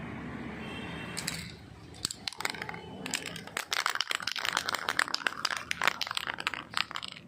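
A steady hiss for about the first second and a half, then a dense, irregular run of small clicks and scrapes from hands and tools working on parts of a rusty 8-inch speaker.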